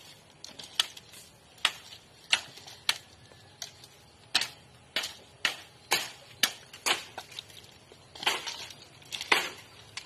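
Chopping strokes of a hand-held blade cutting through stalks of bamboo grass: about fifteen sharp strikes, roughly one every half second to second at an uneven pace.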